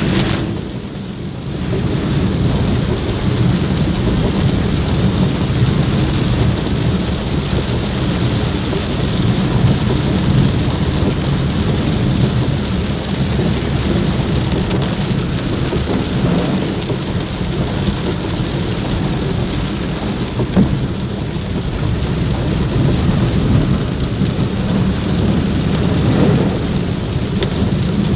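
Heavy rain on a vehicle, heard from inside the cabin: a steady hiss of rain on the glass over a constant low rumble, dipping briefly about a second in.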